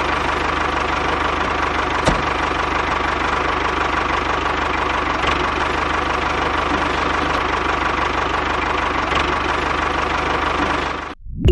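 Small DIY mini tractor's diesel engine running steadily at a constant speed while driving a double water pump, with a few faint clicks; it cuts off just before the end.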